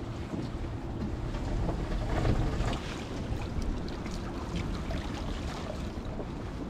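Wind rumbling on the microphone over water splashing and lapping around a small open boat, with many small scattered splashes and drips throughout.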